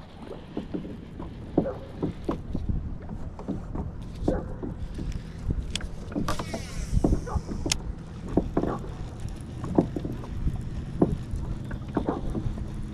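Small knocks and water slapping against a kayak hull, with wind rumbling on the microphone. About six seconds in, a brief whirring hiss fits the baitcasting reel's spool spinning as line pays out on a cast.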